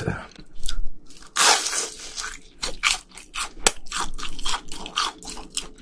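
Close-miked crunching of a fried cheese ball being bitten and chewed: a crisp bite about a second and a half in, then a run of short crunches as the crust is chewed.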